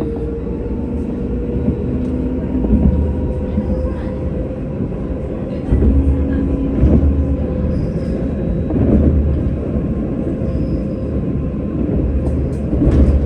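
Tram running along the track: a steady low rumble with an electric motor whine that rises slightly in pitch, and a few heavier thuds along the way.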